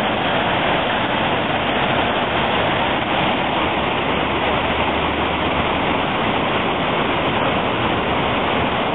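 Steady rush of a forest stream in whitewater rapids, swollen into a small river after a hurricane.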